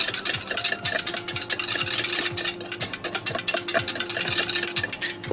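A wire whisk beating egg in a plastic measuring cup: quick, regular strokes of the whisk rattling against the cup.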